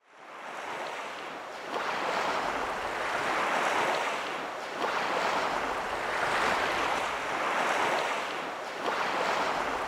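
Sea waves washing, fading in and then swelling and ebbing in surges about every second and a half.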